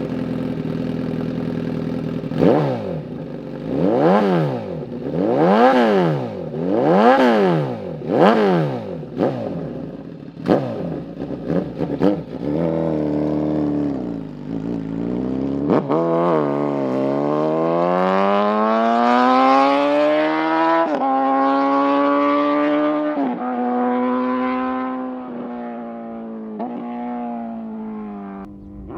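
Suzuki GSX-S1000's inline-four engine through a full titanium aftermarket exhaust: idling, then four sharp revs and two shorter blips of the throttle. After that comes one long rise in pitch lasting several seconds, then a few stepped drops in pitch.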